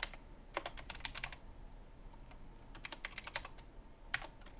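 Computer keyboard typing: quick bursts of keystrokes with short pauses between them.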